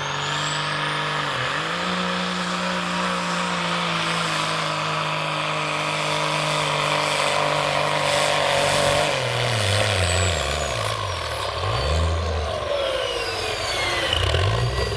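Peterbilt semi truck's diesel engine under full load pulling a sled, running at a steady high pitch. About nine seconds in the engine pitch drops and wavers up and down, and high whines glide downward.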